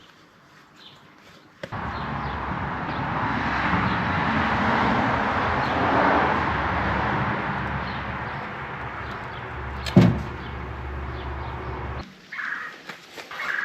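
A steady running engine or machine that cuts in abruptly about two seconds in and cuts out abruptly near the end, with one sharp knock about ten seconds in.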